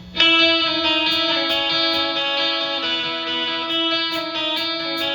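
Electric guitar struck once just after the start, its chord left ringing and shifting notes now and then. Faint high ticks come about twice a second from about a second in.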